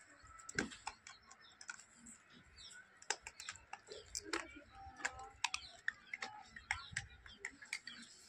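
Scattered, irregular light clicks and taps, like typing, from gray langurs picking food off a woven cot with their hands.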